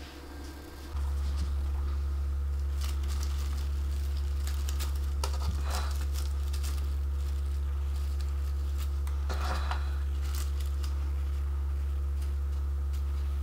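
A steady low hum starts about a second in and carries on throughout. Over it come a few brief crackly rustles of stiff wafer-paper ruffles being handled.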